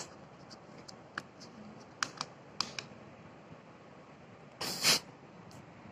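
Faint, scattered clicks and taps of handling, with one short, louder hiss about four and a half seconds in.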